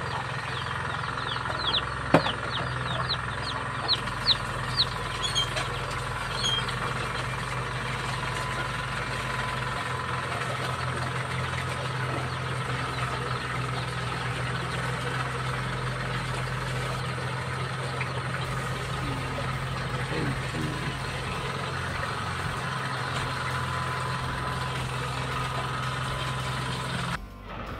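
Kuliglig hand tractor engine running steadily at an even pitch while it works the field. Chickens cluck and call over the first few seconds.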